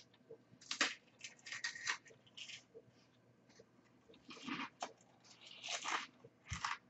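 Crunching and chewing of a crisp wafer ice cream cone, in quiet irregular bursts: one run of crunches about a second in, and another from about four seconds in.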